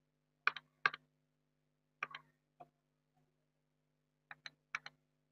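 Sharp clicks of a computer pointing device, mostly in quick pairs: two about half a second in, two more around two seconds, and a faster run of four around four and a half seconds. A faint steady electrical hum runs underneath.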